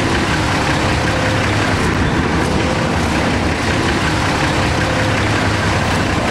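Heavy diesel vehicle engine running steadily, a low hum over a constant bed of noise.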